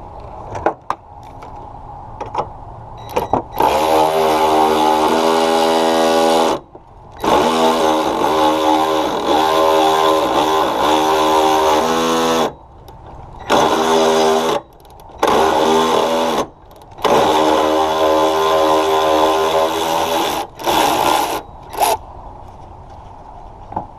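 A cordless power tool's motor running in about seven bursts of one to five seconds each, with short stops between, as fasteners are run out during battery removal. A few light clicks come in the first three seconds.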